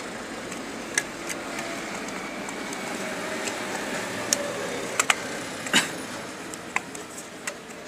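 Scattered sharp clicks and taps as a mini Bluetooth speaker's plastic casing parts are handled and pressed into place, over a steady background hiss.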